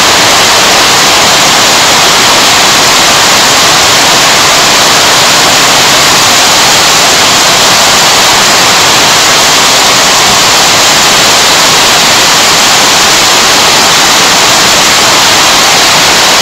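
Heavy rain and hail pelting down in strong wind: a loud, steady rush of noise.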